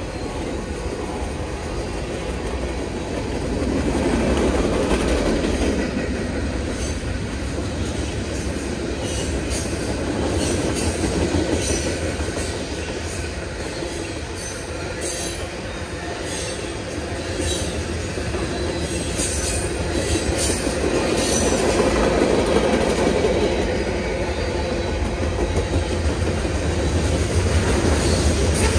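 Freight train cars (tank cars and covered hoppers) rolling past close by: a continuous rumble of steel wheels on rail that swells and fades as the cars go by. Brief high-pitched wheel squeals and clicks come through the middle stretch.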